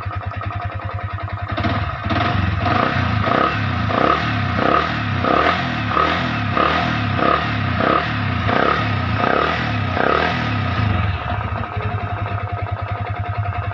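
Yamaha Vixion's single-cylinder liquid-cooled engine running with the radiator cap off, just after the coolant was refilled. From about two seconds in until near the end its sound rises and falls in a steady rhythm, a little under twice a second, then settles back to an even run.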